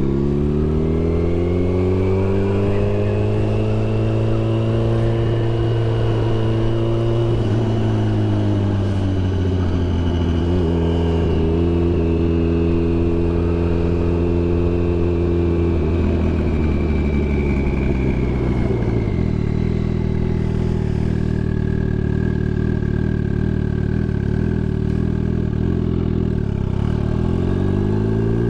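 Turbocharged Suzuki Hayabusa's inline-four engine under way. It climbs in revs over the first few seconds, drops back about seven seconds in and holds, eases off again around sixteen to nineteen seconds and settles lower, then picks up once more near the end, with a high whine rising and falling above it.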